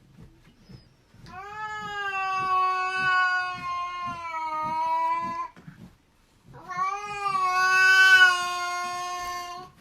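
A cat yowling: two long drawn-out calls, each held steady for several seconds, the second one louder.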